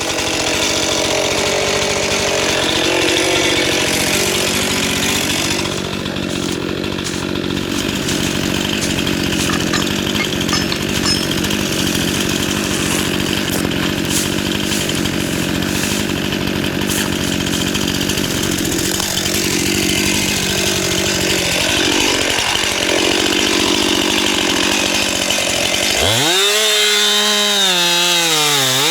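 Stihl MS 261 two-stroke chainsaw running at full throttle, cutting into wood with a steady engine note. Near the end its pitch jumps higher and wavers as the saw revs up and down.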